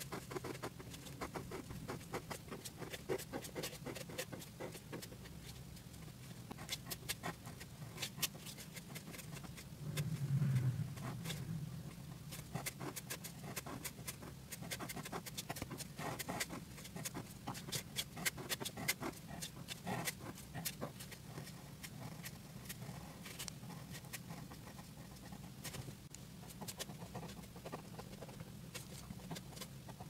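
A pen tip scratching and ticking on paper in short, irregular strokes, over a low steady hum. There is a brief low rumble about ten seconds in.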